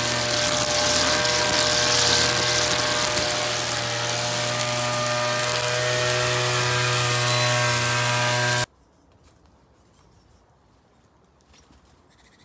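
Petrol string trimmer running steadily at high revs while cutting grass and weeds. It stops abruptly about nine seconds in, leaving only faint outdoor sounds with a few light clicks.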